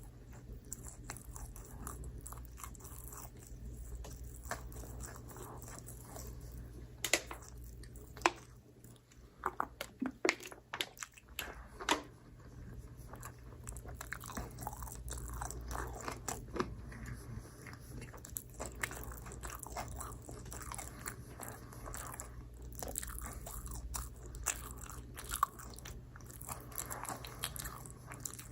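Close-miked mouth sounds of someone biting and chewing microwave-oven pizza. A few sharp, loud bites come about a third of the way in, followed by steady chewing, over a constant low hum.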